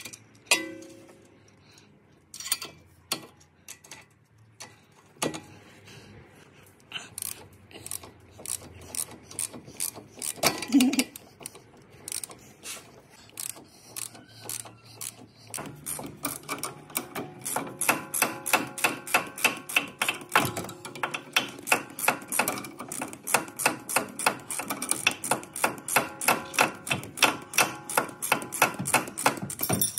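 Hand ratchet clicking as it runs the nut onto a new sway bar end link stud. There are a few separate clicks and metal knocks at first, then from about halfway a steady, even run of about four clicks a second.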